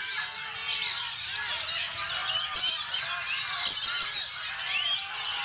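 Oriental magpie-robin (kacer) singing a fast run of whistles and chirps over a dense chorus of many other songbirds singing at once.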